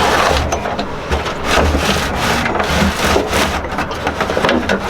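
Irregular scraping and rubbing against wood with scattered small knocks, like a cable and fittings being worked through wooden cabinetry by hand.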